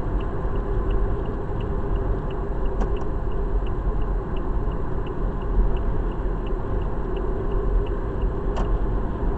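Car turn signal clicking steadily, about three ticks a second, heard inside the cabin over the steady rumble of the engine and tyres on the road: the left indicator is on for a lane change.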